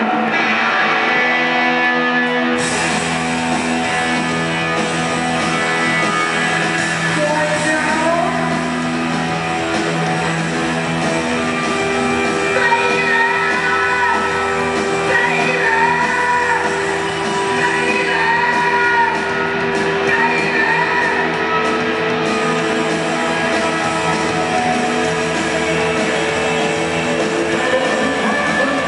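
A hard-rock band playing live in an arena: electric guitar, bass and drums with a lead singer, heard from the stands.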